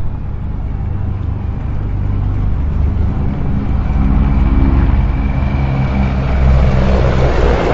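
Three Mi-35 attack helicopters, twin-turboshaft machines, flying past in formation: rapid rotor chop and engine noise that grows louder as they come closer, with a faint high whine above it.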